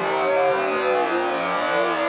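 Music playing, with several instruments sounding together steadily.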